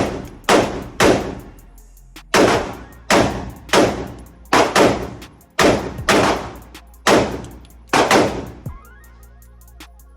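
A string of about a dozen gunshots at an irregular pace, some fired in quick pairs, each with a short ringing tail. The shooting stops a little before the end, leaving background music.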